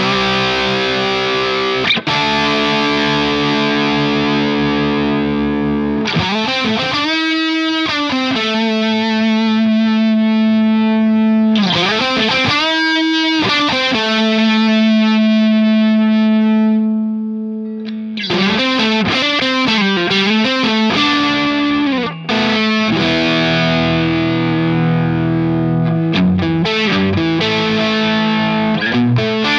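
Electric guitar played through an engaged NUX XTC OD overdrive pedal into a BluGuitar Amp1, giving a distorted overdrive tone. Sustained chords and notes bent up and down, a long held note that dies away past the middle, then choppier chord playing.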